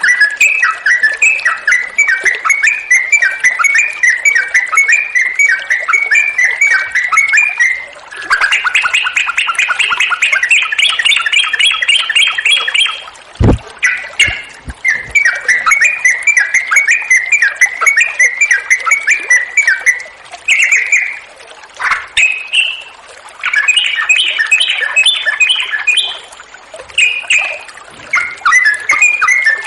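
Yellow-vented bulbul (trucuk) singing long runs of rapid, bubbly chattering phrases with only brief pauses, the kind of full song used as a lure recording to get other bulbuls singing. A single sharp knock sounds about 13 seconds in.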